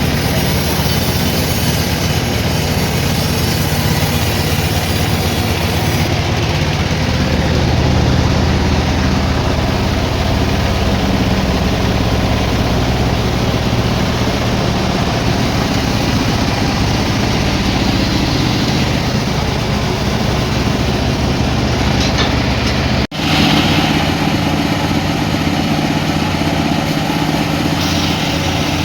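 Sawmill machinery running with a loud, steady, low engine drone. It drops out for an instant about two-thirds of the way through.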